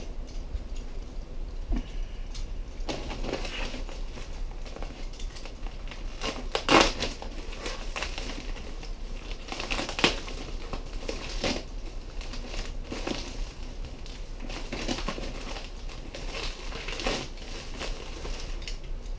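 Padded plastic mailer crinkling and rustling as it is handled and slit open with a utility knife, with a couple of sharper, louder crackles along the way.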